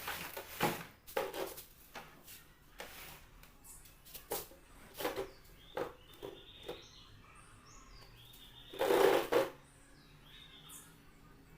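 Handling noise: scattered clicks and knocks, with a louder rustling burst about nine seconds in.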